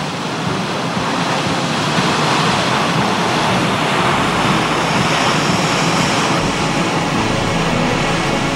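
Water rushing out of a lake-flooding inlet and spouting up through a pile of rocks: a steady, loud rush.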